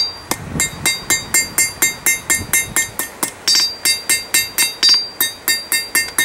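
Blacksmith's hand hammer striking a steel bar held in tongs on an anvil, forging it in a steady rhythm of about four blows a second, each with a short metallic ring.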